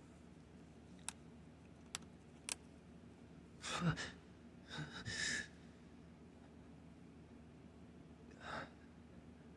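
A man's audible breaths: sigh-like exhales about four and five seconds in and a shorter one near the end, after three faint clicks in the first few seconds.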